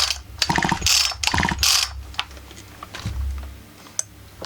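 Husqvarna 44 chainsaw's recoil starter pulled several times in quick succession, ratcheting as the engine spins over without firing: no spark is showing at the plug. The pulls fill the first two seconds, followed by a quieter stretch and a single click near the end.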